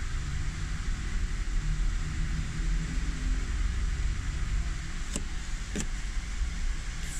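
Steady low rumble with an even hiss, and two short sharp clicks about five and six seconds in.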